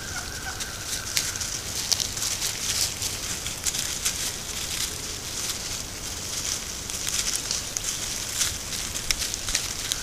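A flock of wild turkeys walking through dry leaf litter: irregular crackling and rustling of leaves underfoot.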